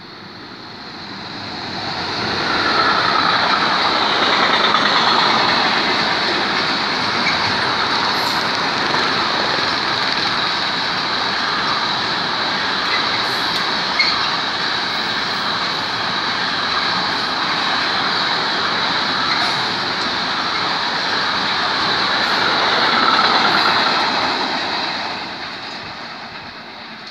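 Intermodal freight train loaded with lorry trailers passing at speed: the rolling noise builds over the first couple of seconds as it arrives, stays loud and steady with a high whine, scattered wheel clicks and one sharp knock about halfway through, then falls away near the end as the train leaves.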